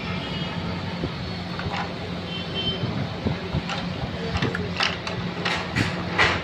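A few sharp plastic clicks and taps from handling an inkjet printer's ink dampers, tubing and a syringe, coming more often towards the end, over a steady low background hum.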